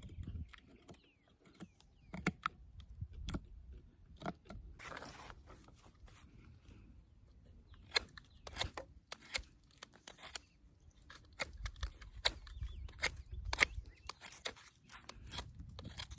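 Pocketknife blade carving a wooden stick: an irregular run of small cuts, crunches and scrapes as wood shavings are taken off.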